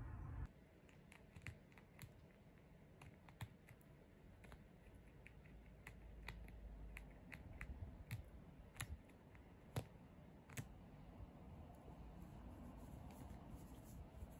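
Faint, irregular sharp clicks and snips of a pet prairie dog's teeth gnawing at cloth trousers, biting holes in the fabric.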